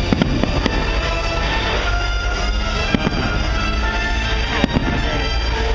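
Fireworks bursting aerially, several sharp bangs scattered through, over steady music playing throughout.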